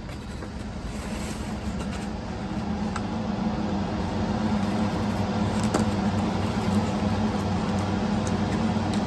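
A steady machine hum, like a motor or engine running, that grows louder over the first few seconds and then holds steady.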